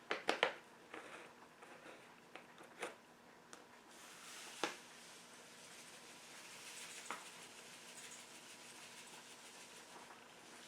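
Faint taps and clicks as sweetener is measured out with a spoon into a mixing bowl, with a soft hiss from about four seconds in.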